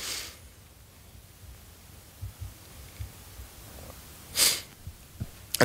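Mostly quiet room tone with a few soft low thumps, then one short, sharp breath close to a handheld microphone about four and a half seconds in.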